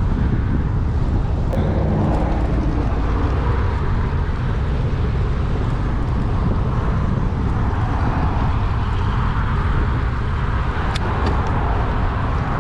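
Strong wind buffeting the microphone of a cyclist riding into a headwind: a steady, loud rumble, with a few faint sharp ticks about a second and a half in and near the end.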